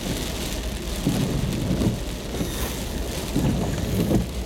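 Heavy monsoon rain pelting down with strong, gusting wind: a dense, steady hiss over a low rumble that swells with each gust.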